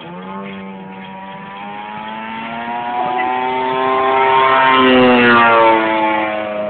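Engine and homemade propeller of a 28% scale Extra aerobatic model airplane in flight: a steady engine note that grows louder to a peak about five seconds in, its pitch dropping as the plane passes, then easing off.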